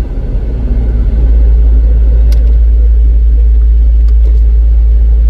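Loud, steady low rumble aboard a boat under way across open water, the drone of the vessel and its motion filling the low end.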